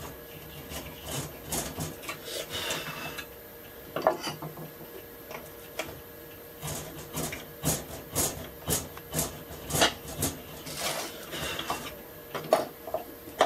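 Hand paring chisel cutting rosewood in a series of short scraping strokes, about two a second through the middle of the stretch, paring the bottom of a rabbet plane's mouth flat.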